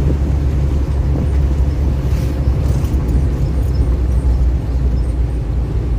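Steady low rumble of a vehicle travelling on the road, engine and road noise.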